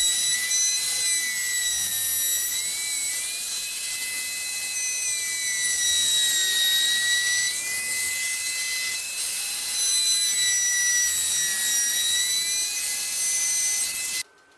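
Compact trim router running at high speed, a steady high-pitched whine. Every few seconds its pitch sags and recovers as the bit cuts a groove along a wooden board. It stops suddenly near the end.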